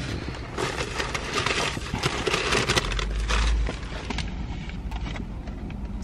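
Paper fast-food bags and cardboard boxes rustling and crinkling as they are handled, with a brief low rumble about three seconds in.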